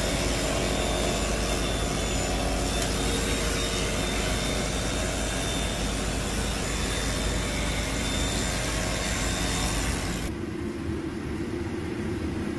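Steady mechanical whir with a rasping hiss as gyro meat is shaved off a vertical rotisserie spit, over the food-truck kitchen's running machinery. About ten seconds in it drops to a quieter steady hum.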